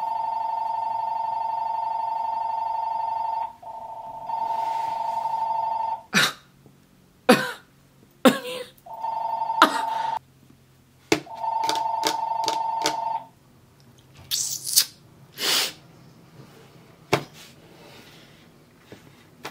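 An electronic telephone ringer sounding a steady two-tone warble. First comes one long ring of about six seconds, then two shorter rings with gaps, stopping about two-thirds of the way through. A few sharp clicks or knocks fall between the rings.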